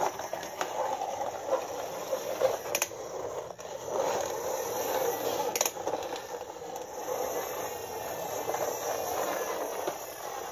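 Plastic toy fire truck's wheels rolling over a hard floor as it is pushed by hand, a rough rolling noise that swells and eases, with a few light plastic clicks.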